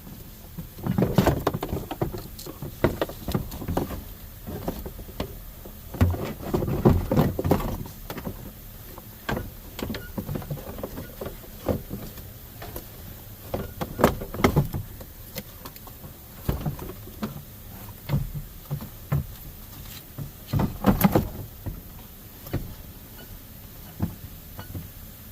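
Knocks, clunks and rattles of parts being handled and fitted, coming in several bunches a few seconds apart.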